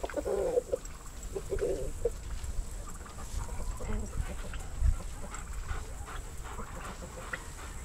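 Chickens clucking in short repeated calls, loudest in the first two seconds, over a low rumble, with a single knock about five seconds in.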